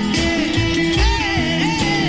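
Rock music: a wavering, bending lead melody over bass and drums.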